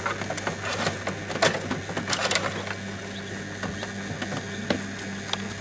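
Newly hatched chicks peeping inside an incubator, many short high calls coming thick and fast over a steady low hum.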